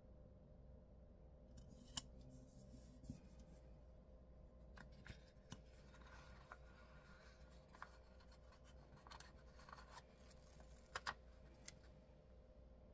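Faint paper and sticker handling: scattered sharp clicks and soft rustles as box stickers are peeled and pressed onto a planner page, with the sharpest click about two seconds in and a quick pair near the end.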